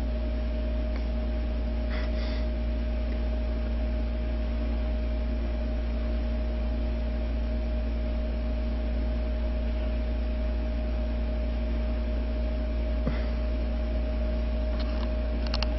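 Steady low hum over a faint hiss, unchanging throughout, with a few faint clicks about two seconds in and near the end.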